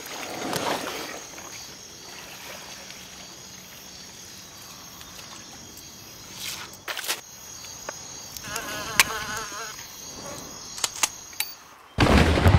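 Quiet outdoor ambience of insects buzzing, with a few scattered small clicks. Near the end a sudden loud blast cuts in.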